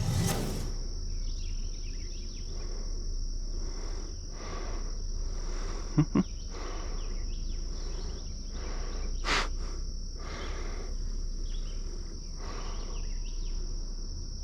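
Steady, high-pitched insect trill, with scattered rustling and a few sharp clicks, a close pair about six seconds in.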